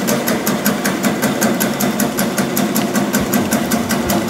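Meatball forming machine running, its forming mechanism clacking in an even rhythm of about five strokes a second over a steady motor hum.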